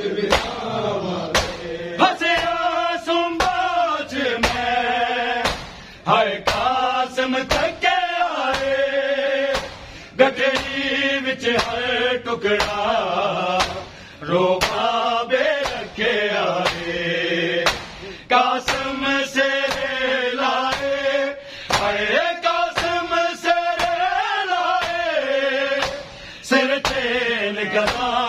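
Men's voices chanting a Muharram noha in phrases a few seconds long, with sharp hand slaps of matam chest-beating keeping a steady beat.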